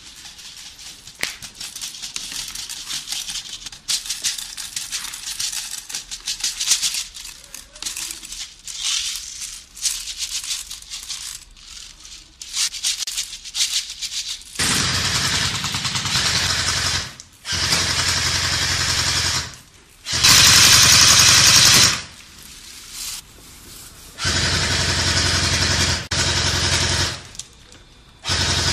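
Light clicking and rattling of gear being handled, then a pressurised gas can hissing in five steady bursts of two to three seconds each, starting and stopping abruptly, as gas is charged into a magazine. The third burst is the loudest.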